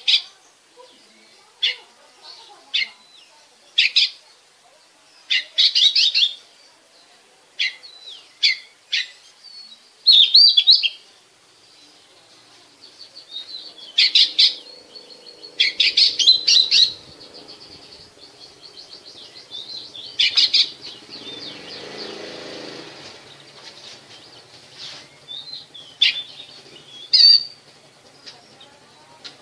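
Oriental magpie-robin calling: a series of short, sharp high chirps and a few brief rapid chattering phrases with pauses between them. A low hum swells in the middle and fades away.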